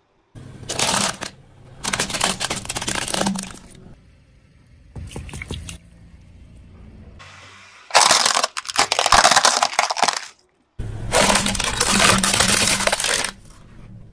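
Hard plastic toys cracking and crunching under a car tyre as it rolls over them, in several separate bouts of one to two seconds each with short quiet gaps between.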